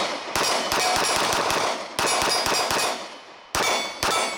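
Mossberg MC2c 9mm pistol fired in a rapid string of about a dozen shots in three quick groups, with steel targets ringing as the rounds hit.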